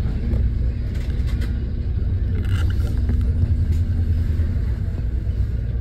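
Alexander Dennis Enviro400MMC double-decker bus under way, heard from inside on the upper deck: a steady low rumble of the drivetrain and road, with a faint steady whine that drops out about two seconds in, returns a second later and stops again past four seconds. A few light clicks about two and a half seconds in.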